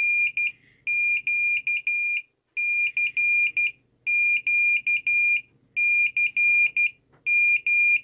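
Piezo buzzer on an Arduino Nano sending Morse code (CW) as high-pitched beeps of dots and dashes: the calling sequence CQ sent three times, followed by DE.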